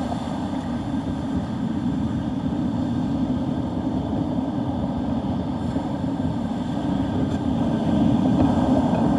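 Steady rumble of wind and surf on a beach in storm weather, a little louder near the end.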